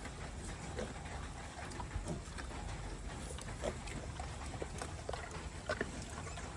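Steady rain noise with scattered short drips and taps, and brief grunts and squeaks from pigs.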